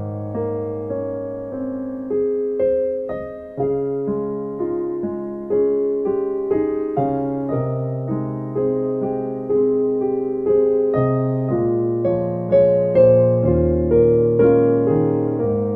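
Slow instrumental piano music: chords and melody notes are struck and left to ring and fade, with no singing.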